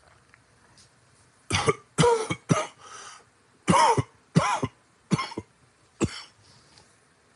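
A man's coughing fit: about eight coughs in two runs, starting about a second and a half in. He has COPD and was sick most of the night.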